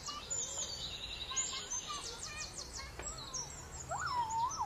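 Songbirds singing: a mix of high chirps and quick trills, with a lower, up-and-down whistled phrase repeating from near the end.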